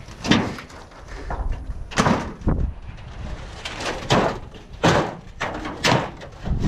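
Sheets of tin cover being shifted in a snake-cover stack: a series of irregular clanks and scrapes, about eight in a few seconds.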